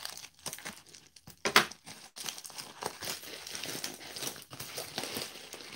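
Crinkling and rustling of a metallic bubble mailer being cut with scissors and opened by hand, with one sharp, loud crackle about a second and a half in and steady, dense crinkling from about two seconds on.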